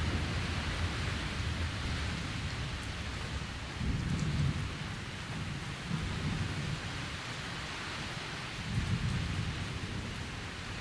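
Steady rain falling with low rolling thunder from a weak thunderstorm, the rumble dying down and swelling again about four, six and nine seconds in.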